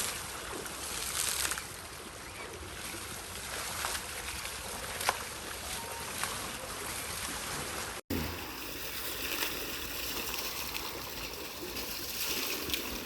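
Water running and splashing steadily as an elephant is bathed, with a brief sharp sound about five seconds in; the sound cuts out for an instant about eight seconds in, then carries on the same.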